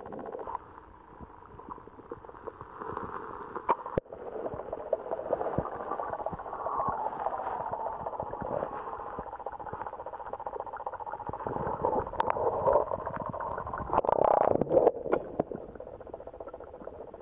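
Creek water heard through an underwater camera: muffled gurgling and bubbling, with a few sharp knocks and a louder burst of bubbling and knocking about two-thirds of the way through.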